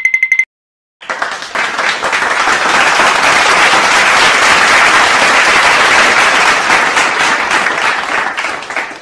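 Stock applause sound effect: a crowd clapping that swells in about a second in, holds steady and fades near the end. It is preceded by a brief, quickly pulsing high chime.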